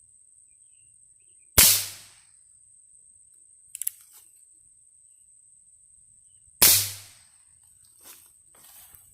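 Two .22 Short rimfire gunshots about five seconds apart, each a sharp crack with a short echo, with a brief cluster of quick clicks between them.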